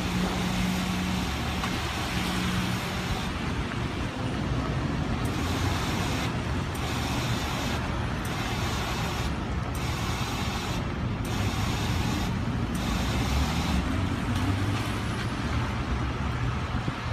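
Steady city street noise: a low traffic rumble under an even hiss, with a faint low tone twice in the first few seconds.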